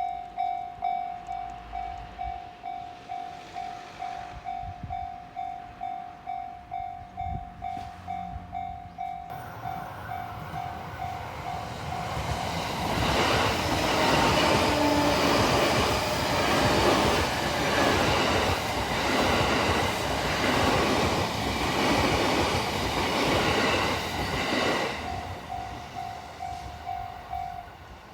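Japanese railway level-crossing warning bell ringing in quick pulses about twice a second as a train approaches. The train passes over the crossing with rumbling and wheel clatter for about twelve seconds, drowning out the bell. The bell is heard again briefly as the train clears and stops shortly before the end.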